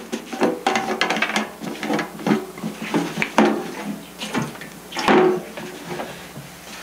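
Metal can of denatured alcohol being handled: tipped over a paper towel to wet it and set back down on a glass tabletop, a string of light clanks and knocks, the loudest about five seconds in.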